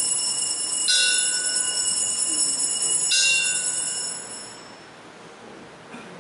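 Altar bell struck twice, about two seconds apart, each stroke ringing bright and high and fading by about four and a half seconds in. It is rung at the elevation of the chalice during the consecration at Mass.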